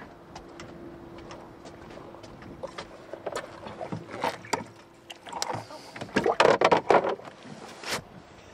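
Handling noises on a small fishing boat: scattered clicks and knocks, thickest and loudest in the last few seconds, over a faint steady hum that fades out about halfway.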